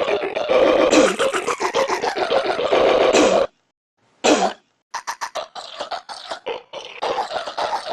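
Belches sampled and sequenced into an app-made music remix. Long belching sounds run for about three and a half seconds, then a short gap with one brief burst, then a sample stuttered in quick repeats before the sound fills back in near the end.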